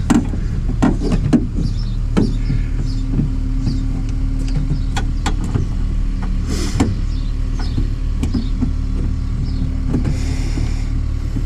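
Scattered small clicks and knocks of plastic clips and a cable fitting being pressed and worked by hand inside a car door, over a steady low hum. A short hiss comes about two-thirds of the way in and again near the end.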